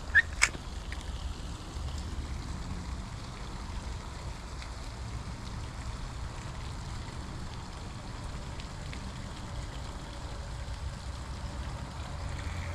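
Steady rushing of water at a dam. Two sharp clicks come near the start.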